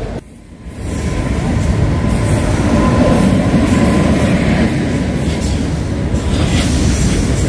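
Freight train, led by an electric locomotive, running along the platform: a loud, steady rumble of wagon wheels on the rails, with a thin steady whine and faint brief squeals.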